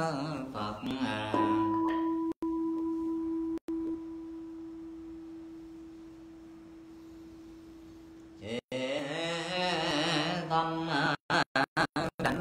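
Buddhist temple bell struck once, giving a single clear ringing tone that fades slowly over about seven seconds. Before it and after it, voices chant Buddha names in Vietnamese. Near the end the chanting breaks up in several brief dropouts.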